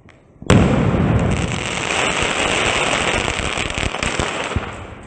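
Desi India 3-in-1 sky shot aerial firework shell bursting with a sudden loud bang about half a second in, followed by a dense crackle of sparks that slowly fades over the next four seconds.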